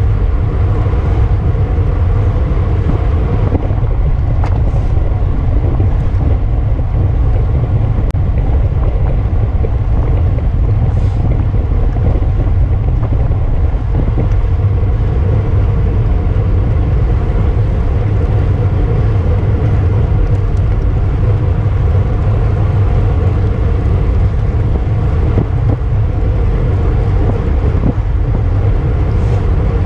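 Wind rushing over the microphone of a camera riding in a bicycle road race at speed: a loud, steady low rumble.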